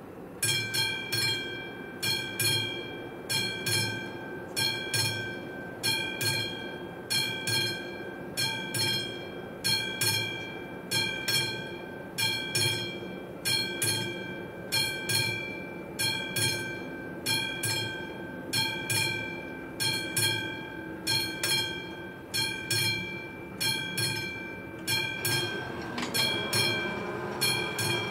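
Railway level crossing warning bell starting up and ringing in an even, repeating rhythm as the crossing is activated for an approaching train. Near the end a second, lower sound joins the ringing.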